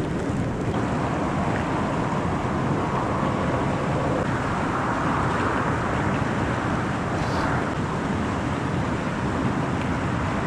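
Steady wind rumbling on the microphone, with no breaks or sharp sounds.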